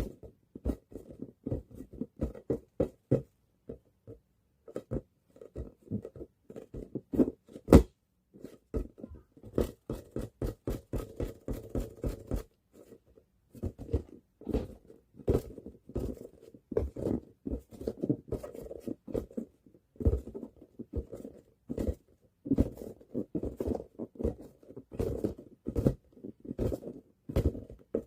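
A ball bounced again and again on a hard floor in a small room: an irregular run of dull thuds and taps, at times several a second, with a few short pauses.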